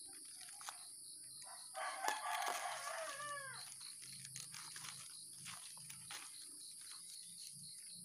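A rooster crows once about two seconds in, a call of nearly two seconds that falls in pitch at the end, over a steady high insect buzz.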